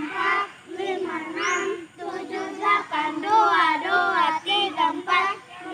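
A group of young children chanting loudly together in unison, counting out the beats of an arm-stretching exercise.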